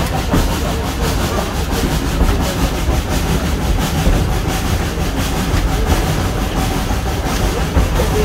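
1927 SACM 040T steam tank locomotive working uphill with a train, heard from the open coach right behind it: a steady heavy rumble of the locomotive and wheels on the rails, with its exhaust beating evenly.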